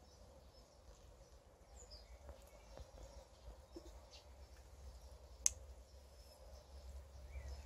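Quiet background with a steady low hum and a few faint clicks, and one sharp click about five and a half seconds in.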